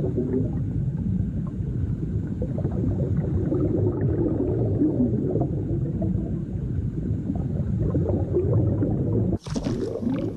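Muffled, underwater-like low rumbling and gurgling, sound design evoking a baby in the womb before birth. About nine seconds in it cuts off sharply and a brighter, clearer sound takes over.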